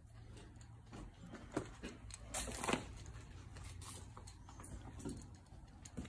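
Footsteps crunching over debris and broken plaster on the floor: irregular crackles and crunches, the loudest two to three seconds in, over a faint low hum.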